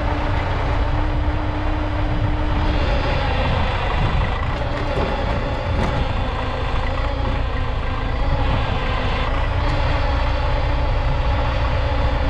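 YuMZ EO-2621 excavator's diesel engine running steadily under load, with a few faint knocks around the middle and near the end.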